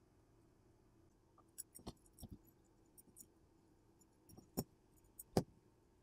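Scattered light clicks and small knocks of wires and a test probe being handled at a circuit board, about ten in all, the two loudest near the end.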